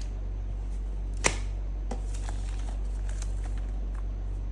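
Paper manuals and packaging from an intercom box being handled: one sharp click about a second in and a few faint ticks, over a steady low hum.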